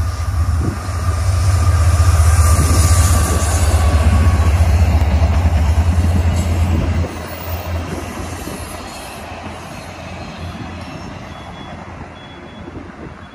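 VIA Rail passenger train with a diesel locomotive passing on the far track: a heavy rumble and wheel noise, loudest for the first seven seconds, then dropping sharply to the quieter rolling of the passenger cars going by.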